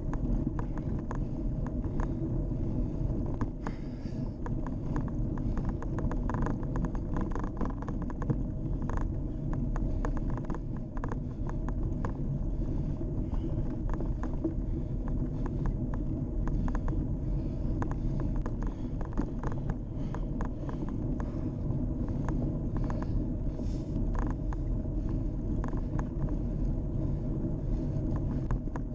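Riding noise from a Scott X40 cross-country mountain bike rolling along a tarmac lane: a steady low rumble of wind on the microphone and tyres on the road, with frequent small clicks and rattles throughout.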